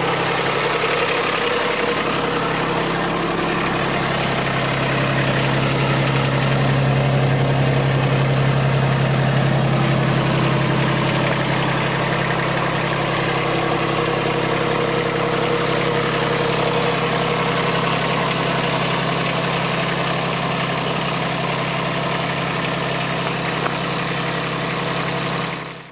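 An engine idling steadily, with an even hiss over it.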